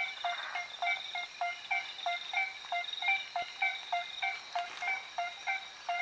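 Aplastodiscus albosignatus treefrog calling: a steady run of short, low notes, about two to three a second. A steady high-pitched drone runs behind it.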